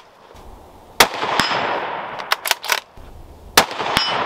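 Two shots from a Ruger American Predator bolt-action rifle in .223, about two and a half seconds apart, each with a long echoing tail. A sharp strike follows each shot just under half a second later, the bullet hitting a steel plate target. Between the shots come several quick clicks of the bolt being worked to chamber the next round.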